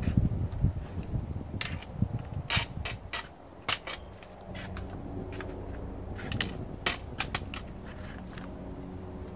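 Low rumbling thumps at the start, then a dozen or so sharp clicks and light knocks spread irregularly, over a faint steady low hum from about halfway through.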